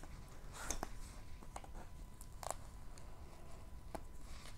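Faint scattered rustles and small clicks of fingers working at the plastic film and double-sided adhesive of a diamond painting canvas, the clearest about halfway through.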